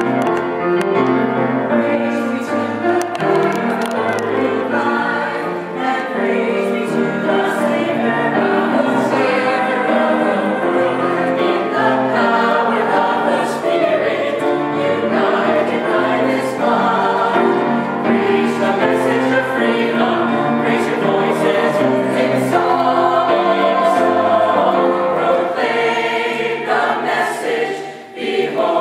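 Mixed choir of women and men singing together, several voices on different notes at once. The singing drops away briefly near the end, then starts up again.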